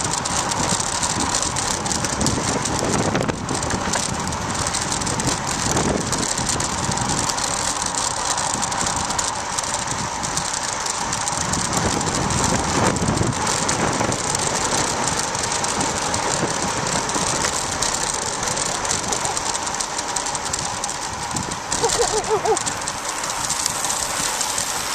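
Road bike coasting fast downhill: the rear freehub ratchet buzzes steadily under rushing wind on the microphone, with clicks and rattles from the bouncing bike-mounted camera. A brief squeak near the end.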